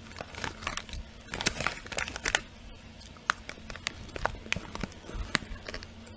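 Crunchy Umaibo Rings Mentai corn puffs being chewed close to the microphone, with the plastic snack bag crinkling as it is handled. Irregular sharp crackles, several a second.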